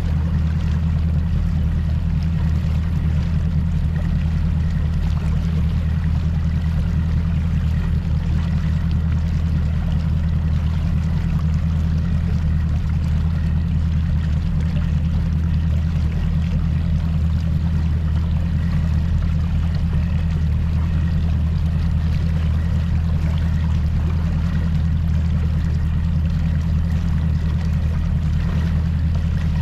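Mercury Pro XS 200 outboard on a Nitro Z19 bass boat running steadily underway, a continuous low drone with the rush of water along the hull.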